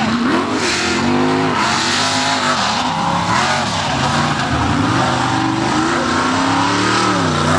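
Off-road race truck engines revving hard, the pitch climbing and dropping again and again as the trucks throttle over the jumps and turns of the dirt course.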